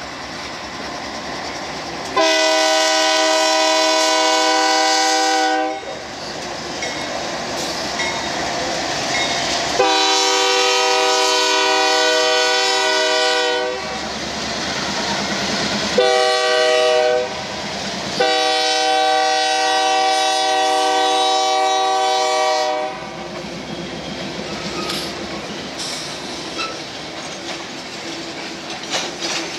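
BNSF GE diesel locomotive's air horn sounding the long-long-short-long grade-crossing signal, a chord of several tones. After the last blast, freight cars roll past with their wheels clicking over the rail joints.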